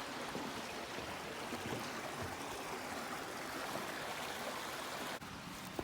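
A stream running steadily: an even rush of flowing water, a little softer from about five seconds in.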